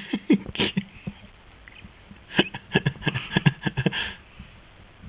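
Eating noises: quick wet smacks and clicks of chewing and lip-smacking in two spells, a short one at the start and a denser one about two and a half seconds in.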